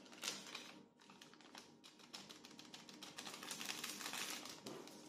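Small paper sachet of vanillin being torn open and crinkled by hand: a quiet run of crackly paper ticks, thickest in the second half.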